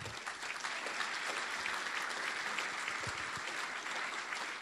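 Audience applauding: many people clapping at a steady level.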